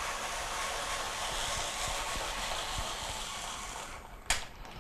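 Hand-cranked apple peeler turning a Granny Smith apple while its blade shaves off the peel, a steady shaving noise that dies down about four seconds in, followed by a sharp click.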